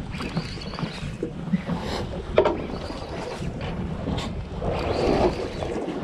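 Wind on the microphone and sea noise from a boat, with short high whirs of a fishing reel's drag giving line as a hooked fish pulls against the bent rod. There is a sharp click about two and a half seconds in.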